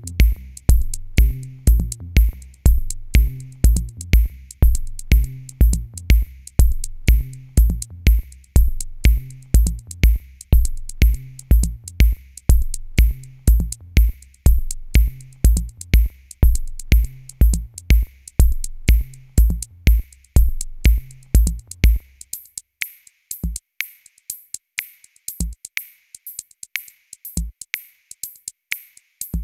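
Background music: an electronic drum-machine beat with a bass line. About 22 seconds in the bass drops out, leaving the sharp beat and an occasional low kick.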